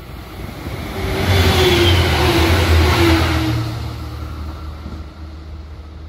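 A train passing close by at speed. The sound swells about a second in, peaks for a couple of seconds with a deep hum and a tone that drops slightly in pitch as it goes by, then fades away.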